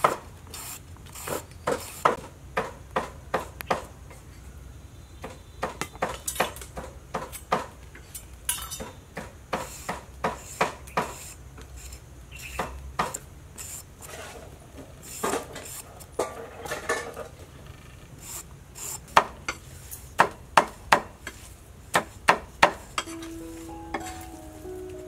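Hand peeler scraping the skin off a long green gourd in short, sharp strokes, often a couple a second, with pauses between runs. Plucked, pitched music comes in near the end.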